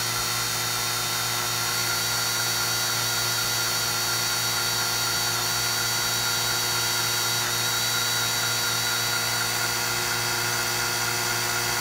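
Cordless drill running steadily at low speed, about 350 to 400 RPM, driving an 11/64-inch solid carbide bit into a hardened grade 8 bolt. An even, unchanging hum with no rise or fall in speed.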